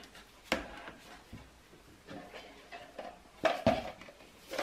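Kitchen utensils and containers knocking and clattering on a hard worktop as they are set down and handled. There is a sharp tap about half a second in, then a small cluster of knocks about three and a half seconds in.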